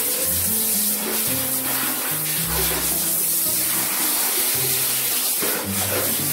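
Comic background music with a bouncy, stepping bass line, over the steady hiss of a handheld shower head spraying water onto a Siberian husky's coat.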